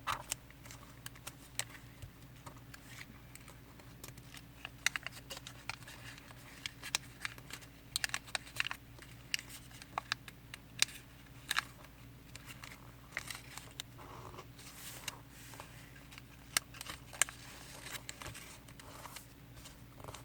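Square origami paper being folded and creased by hand: irregular crinkles, rustles and sharp little clicks as edges are folded to the centre crease and pressed flat. A faint steady low hum sits underneath.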